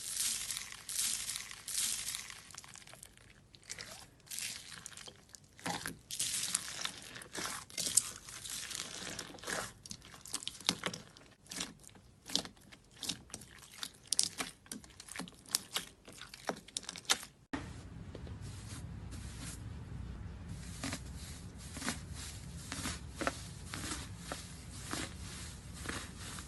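Slime being squeezed and pressed by hand, making rapid crackling, crunching and popping sounds. About two-thirds of the way in the sound cuts to another clip, with the crackles going on over a steady low hum.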